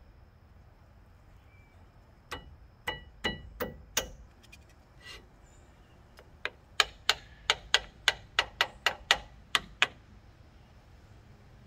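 A screwdriver tapping on the metal of a truck's rear disc brake caliper and pads. About five sharp clicks come a couple of seconds in, some ringing briefly, then a quicker run of about a dozen louder taps, roughly three a second, from about six seconds to near the end.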